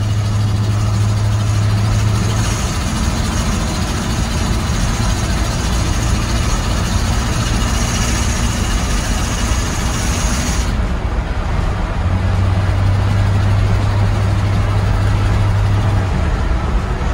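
1965 International pickup driven at highway speed, heard from inside the cab: a loud, steady engine drone with road and wind noise. The drone's pitch steps up a couple of seconds in and drops back down about twelve seconds in. The hiss above it fades away about ten seconds in.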